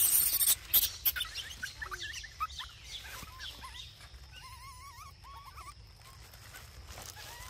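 A loud rustling burst in the first half second, then a scatter of short, wavering chirps from small animals, fading by the end.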